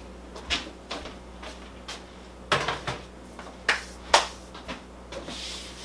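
Several sharp knocks and clatters as a metal baking sheet piled with broken chunks of hardened potter's clay is carried and set down on a kitchen counter, the loudest about four seconds in.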